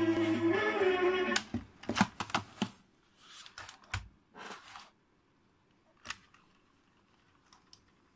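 Tape music from a Boots PS17 cassette player cuts off about a second in with a click. A quick run of plastic clicks and a low knock follow as the player is handled, then a single click later.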